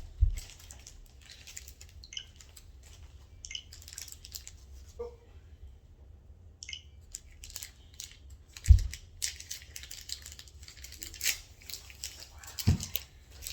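Paper and packaging rustling, crinkling and tearing in irregular crackly bursts as a present is unwrapped. Dull thumps come at the start, about nine seconds in and near the end.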